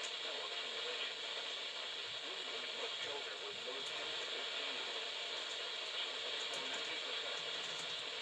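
Steady hiss and crackle of radio static from a weather radio receiver on a weak or lost signal, with scattered faint clicks.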